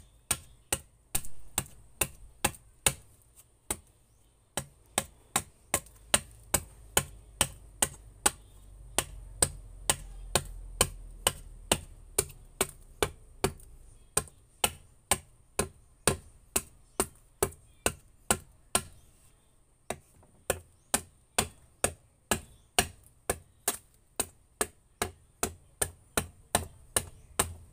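A machete chopping into a wooden paddle blade in a steady run of sharp strokes, about two to three a second with brief pauses, splitting chips off to thin the blade.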